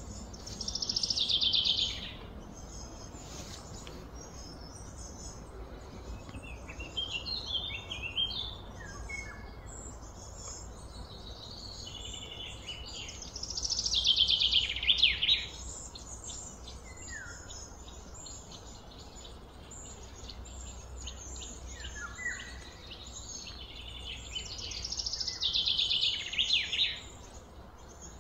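Wild birds singing: a loud, fast trill that falls in pitch, about a second and a half long, comes three times, with shorter chirps in between, over steady outdoor background noise.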